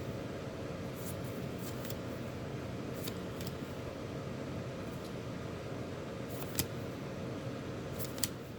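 Baseball trading cards being flipped through by hand: a few soft flicks and slides of card stock, the sharpest about two-thirds of the way in and near the end, over a steady room hum.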